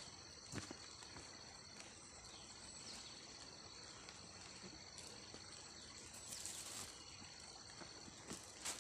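Faint, steady high-pitched trilling of insects such as crickets, with a few soft clicks and a brief rustle about two-thirds of the way through.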